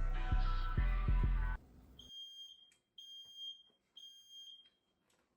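Background music with a beat cuts off about a second and a half in. A smoke alarm then beeps with a high-pitched tone three times, about a second apart, set off by burning bacon.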